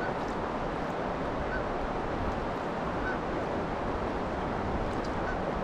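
Steady wind and river-current noise around a drifting boat. A few faint, very short high chirps sound about every second and a half.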